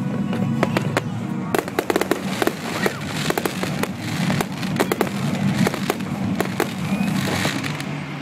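Aerial fireworks fired in rapid volleys: many sharp bangs and crackles, coming thickest from about a second and a half in until near the end.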